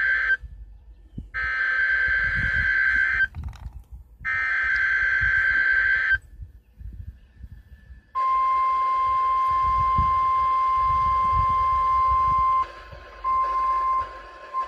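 NOAA Weather Radio warning alarm test from a weather radio receiver: the end of one burst and two more full bursts of the SAME digital header, harsh warbling data tones about two seconds each with short gaps between them. About eight seconds in, the steady 1050 Hz warning alarm tone starts, and near the end it cuts out and back in a few times.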